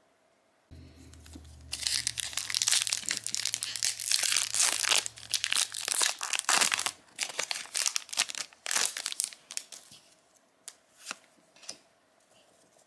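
A trading-card booster pack's wrapper being torn open and crinkled, loudest in the first half, then thinning out into scattered light clicks and rustles.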